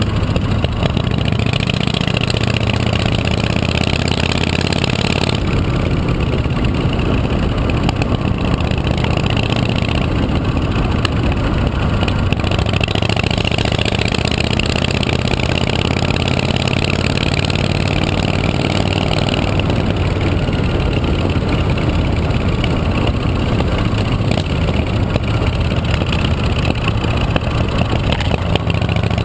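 Chopper motorcycle engine running steadily and loudly, mixed with a constant rush of noise.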